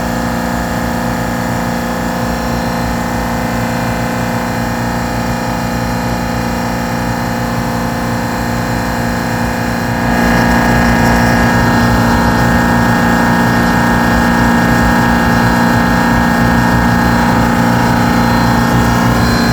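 15 HP semi-hermetic refrigeration compressor unit running steadily with a constant hum. It steps up louder about halfway through and then holds.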